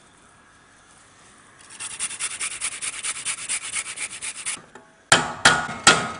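Peeled fresh ginger being grated into a saucepan: a fast, even run of rasping strokes across the grater. Three loud, sharp knocks in quick succession follow near the end.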